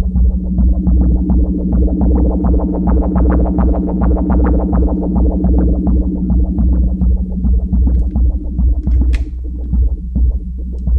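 Eurorack modular synthesizer patch playing dense, rapid short plucked notes in overlapping rhythmic layers over a steady low drone, the layers set by the PoliMATHS channels' modulation timing. A brief bright hiss sounds about nine seconds in.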